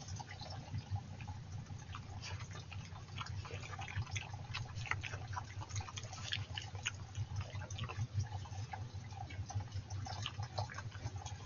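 A woodland stream trickling, with many irregular small clicks and patters as a European badger snuffles and roots along the bank while foraging.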